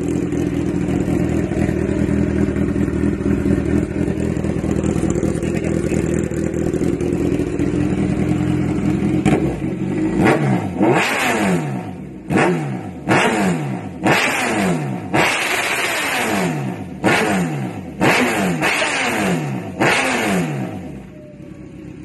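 A 2017 Kawasaki Z1000R's inline-four engine breathing through an AR GP1R titanium full-system racing exhaust. It idles steadily for about nine seconds, then is blipped hard about ten times in quick succession, each rev shooting up and dropping back, before settling again near the end.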